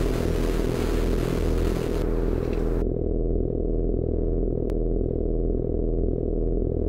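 Sound-design soundtrack: a dense, pulsing low rumble, with a hiss of TV-style static over it that cuts off abruptly a little under three seconds in. A single sharp click comes just under five seconds in.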